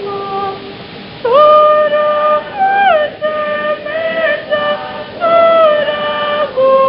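Voices singing a slow worship song together in one melody line, holding long notes and sliding between them; after a softer moment about a second in, a louder phrase begins.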